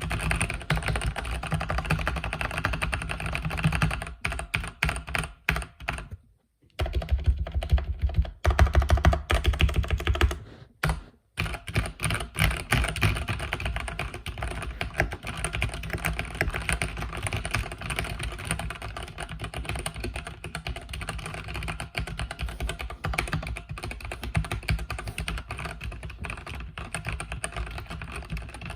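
Mechanical keyboard with red linear switches being typed on continuously, a dense run of key clacks. There are two short pauses in the first half and louder, heavier strokes between them.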